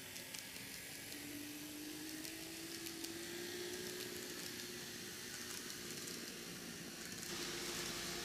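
N-gauge model train (KATO JR Shikoku N2000 series) running on its track: the steady hum of its small electric motor, rising slowly in pitch, over a hiss of wheels on rails with faint ticks. The hiss grows a little louder about seven seconds in.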